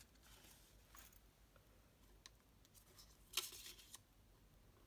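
Faint handling sounds of craft tweezers working a sheet of small stick-on flower embellishments: a few light ticks and one brief scratchy rustle about three and a half seconds in as a flower is lifted from its backing.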